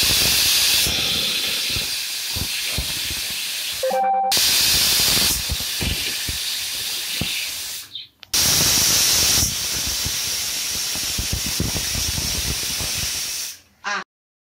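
Hawkins pressure cooker's weight valve venting steam in a loud, steady hiss, the sign that the cooker has reached full pressure. The hiss breaks off briefly twice and stops just before the end.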